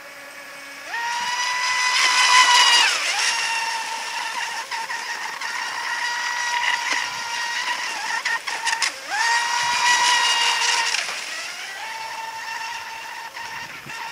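Surpass Rocket 3670 2280kv brushless motor of a fibreglass RC mono speedboat, whining high at full throttle. The pitch jumps up about a second in and drops back near three seconds, climbs again around nine seconds and eases off around eleven, then rises once more.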